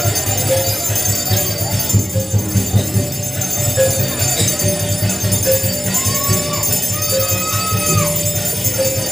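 Procession percussion accompanying tatung performers: a large drum beating rapidly, with a higher ringing note struck at a steady pace a little more than once a second, and jingling metal on top.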